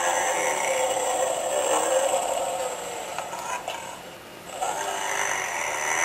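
Snoring sound from a Totoro plush doll: one long, wavering snore that fades out about three and a half seconds in, a short lull, then the next snore starting about four and a half seconds in.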